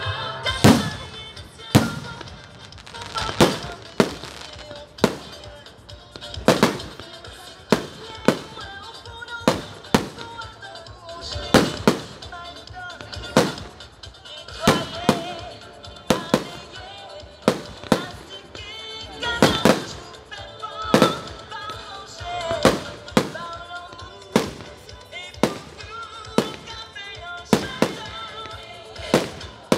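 Fireworks display: aerial shells bursting in a steady run of sharp bangs, about one a second, over music.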